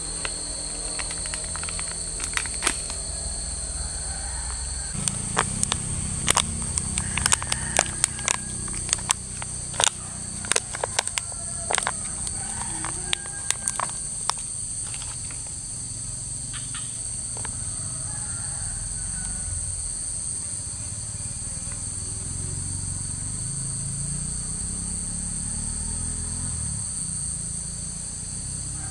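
Steady high-pitched insect chorus, with a run of sharp clicks and taps from about five to fifteen seconds in as hands handle a small plastic container and fishing tackle, over a low rumble.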